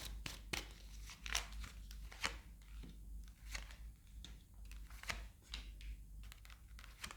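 Tarot cards being shuffled and drawn by hand: faint, irregular rustles and soft flicks of card stock.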